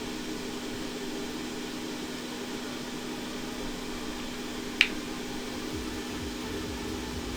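Steady low machine hum with one sharp small click about five seconds in.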